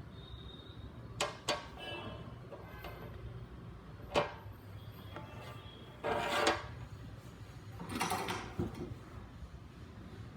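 Workbench handling noises while soldering a cable wire: a few sharp clicks and knocks from small tools and parts being picked up and set down, and two brief scraping rustles, over a low steady hum.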